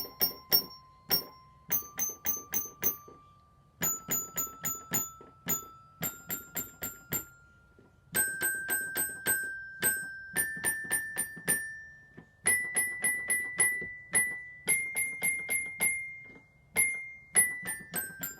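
Keyboard xylophone played by hand: bright struck notes, repeated several times on each pitch, climbing step by step, then running quickly back down near the end.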